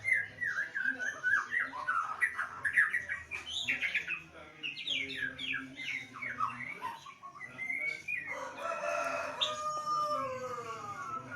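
White-rumped shama (murai batu) singing in full voice, a fast run of varied whistled phrases, many sliding up and down. About eight seconds in, a crow like a rooster's, falling in pitch, lasts around two seconds.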